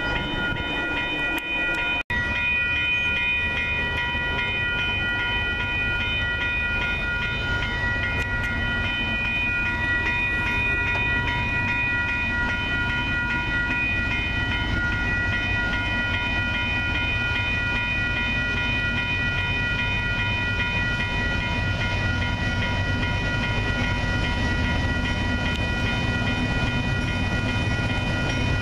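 Railroad grade-crossing warning bell ringing continuously with a steady tone. Under it, the low rumble of an approaching Union Pacific freight train's diesel locomotive slowly grows louder.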